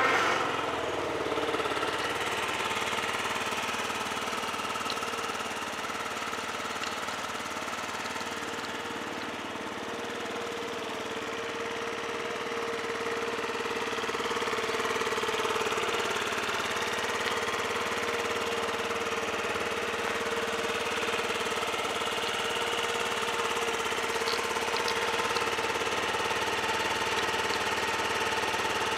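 Yamaha Vino 50cc four-stroke scooter engine idling steadily right after starting, running smoothly in good order.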